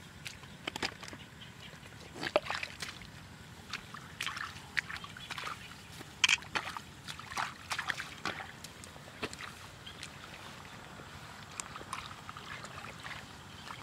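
Bare feet squelching and sloshing through the wet mud and shallow water of a flooded rice paddy: a run of irregular wet squelches and small splashes, thickest in the middle.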